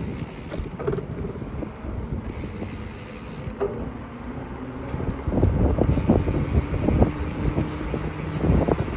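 Wind buffeting the microphone of a camera carried on a moving bicycle, over tyre rumble on asphalt. The buffeting gets louder and gustier about five seconds in.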